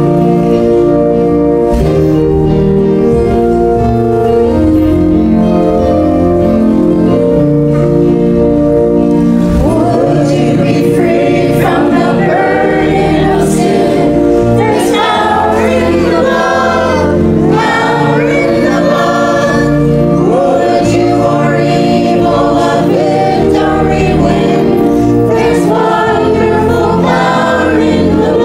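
Church choir singing with accompaniment. Steady held chords at first, with livelier moving vocal lines from about ten seconds in.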